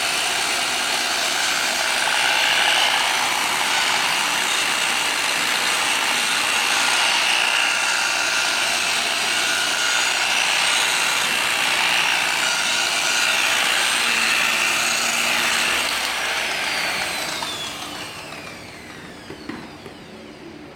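Electric buffer running steadily while polishing a plastic headlight lens. About 17 seconds in it is switched off and winds down, with a falling whine as the pad slows.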